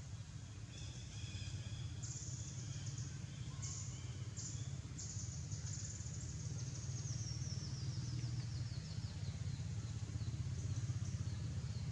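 Outdoor ambience: birds chirping and trilling in quick high series, one run of notes stepping down in pitch about halfway through, over a steady low hum.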